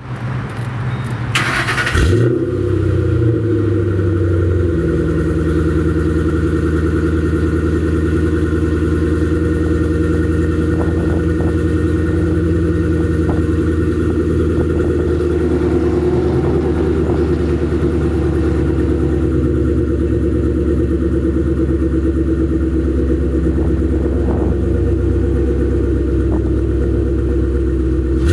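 Ford Mustang GT's 4.6-litre three-valve V8 exhaust: the engine fires up with a sharp flare about a second and a half in, then settles into a steady idle.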